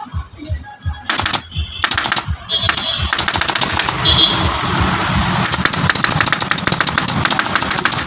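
Pneumatic upholstery staple gun firing staples through sofa fabric into the wooden frame. A few single shots come first, then a fast run of several shots a second over the second half.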